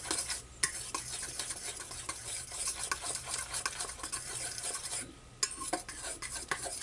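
A utensil stirring pancake batter in a bowl, with rapid scraping and clicking against the bowl. The stirring stops about five seconds in, followed by a few lighter clinks.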